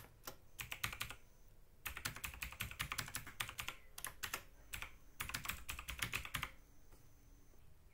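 Computer keyboard typing in three quick runs of keystrokes with short pauses between them, stopping near the end.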